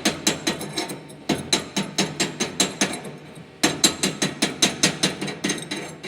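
Chipping hammer striking a flux-cored weld bead to knock off its slag layer: rapid sharp strikes, about four or five a second, with a brief pause about halfway through.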